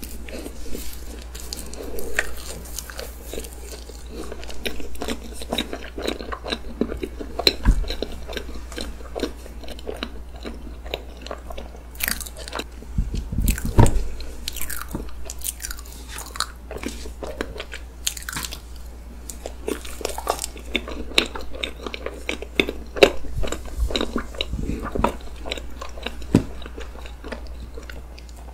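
Close-miked eating of chocolate-sponge cream cake: chewing and biting with crisp, cookie-like bits crunching, and a wooden spoon cutting into and scraping the cake. A few louder knocks come near the middle.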